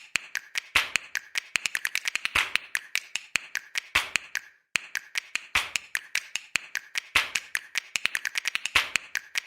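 Rapid, irregular tapping clicks, several a second, with a very brief break about halfway through.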